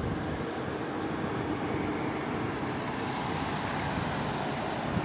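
Steady outdoor background noise: a low rumble and hiss with a faint steady hum running through it.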